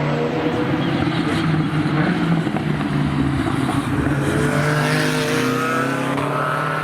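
BMW M6 GT3's 4.4-litre twin-turbo V8 race engine running hard, with the pitch rising as it accelerates in the second half.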